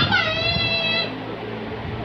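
A young child's high-pitched, drawn-out vocal sound lasting about a second, sliding down in pitch and then held, with no words in it.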